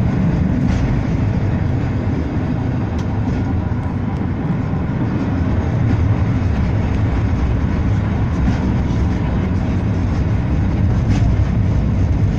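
Blackpool tram no. 715 running along its track, heard from inside the car: a steady low rumble of motors and wheels on rail, with a few faint ticks.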